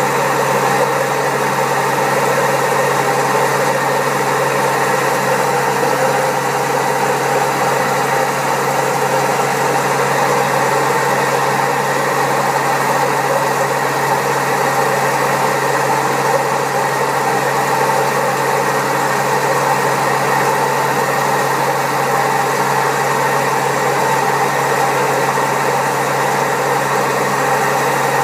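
Servis Caress 1300 washing machine running with a steady, loud mechanical drone and rumble, typical of its high spin at up to 1300 rpm on drum bearings that are very badly worn.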